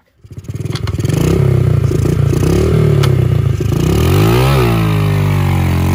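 Honda XR70R pit bike's small single-cylinder four-stroke engine revving hard. The revs dip sharply about four and a half seconds in and then climb again: a clutchless pit-bike start, revved with the shifter held up and then let down into first gear.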